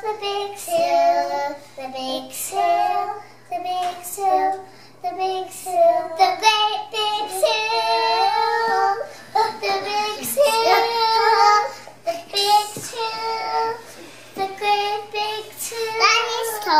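Young children singing a song, in a string of held, high-pitched notes broken by short pauses between phrases.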